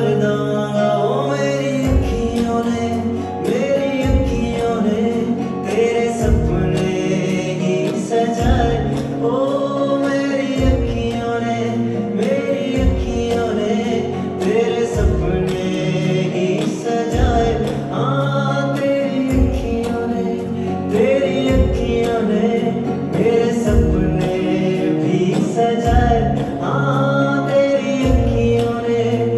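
Male singer singing live over a backing track, a deep bass note falling about every two seconds.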